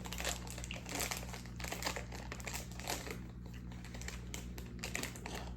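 Slime being grabbed, stretched and squeezed by hand, giving irregular sticky crackles and clicks that come thickest in the first half.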